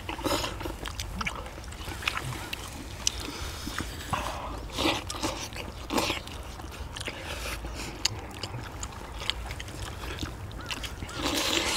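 People eating braised spicy monkfish and bean sprouts, with irregular slurping and chewing and a few sharp clicks of chopsticks against bowls.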